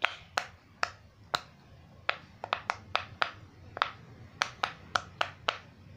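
Round silicone pop-it fidget toy being pressed, its bubbles popping one after another in an uneven series of about sixteen sharp clicks.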